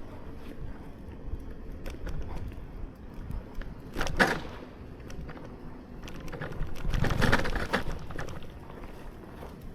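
Steady rumble of a bicycle being ridden over a snowy street, with wind on the microphone, and two louder swishes about four seconds and seven seconds in.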